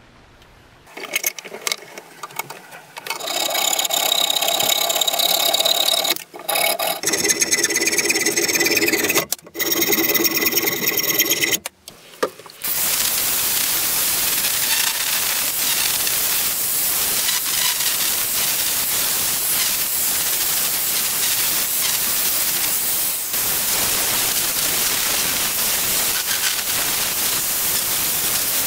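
Angle grinder with a sanding disc, sanding a cleaver's wooden handle scales down flush with the steel tang. At first the motor's whine is broken by a few short gaps; from a little before halfway it runs on as a steady hiss of the disc on the wood.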